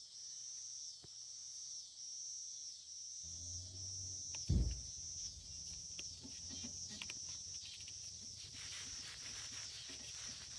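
A steady insect chorus, evenly pulsing and high-pitched, runs throughout. A single thump comes about halfway through, and in the second half there is light crackling as fingers press a vinyl decal's transfer tape onto the bumper.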